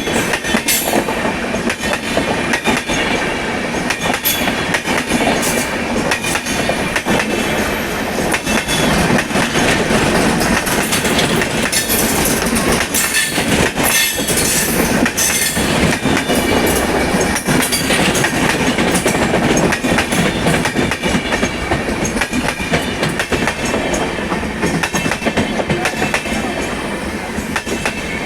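Indian Railways train running on the track: a loud, steady rumble of rolling wheels with a rapid, irregular clatter of wheels over rail joints throughout.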